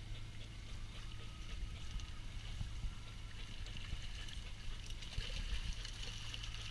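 Water splashing and sloshing as a seine net is hauled in alongside a boat, growing busier over the last couple of seconds as the trapped horse mackerel churn at the surface. A steady low hum from the boat's engine runs underneath.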